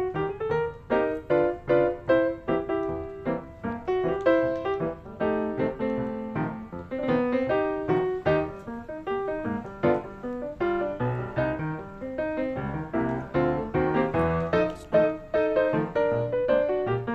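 Background piano music, a quick run of notes that goes on without a break.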